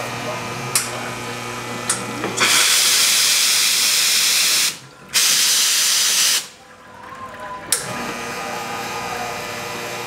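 Nuova Simonelli Aurelia espresso machine's steam wand blasting steam in two loud hissing bursts, the first about two seconds long, then a brief stop, then a shorter one. A couple of sharp clicks come before the steam and one more after it.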